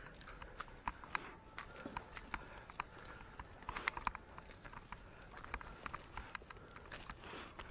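Footsteps on a rocky, muddy hillside path: a run of irregular scuffs and clicks of shoes on stone and grit.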